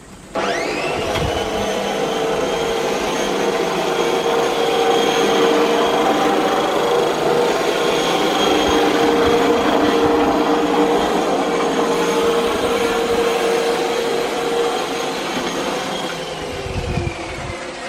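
Makita MLM-2851 electric reel mower switched on, its whine rising quickly, then running steadily with a high whine and rattle, and near the end winding down as the pitch falls. The noise is one the owner believes comes from a worn bearing on the reel blade shaft.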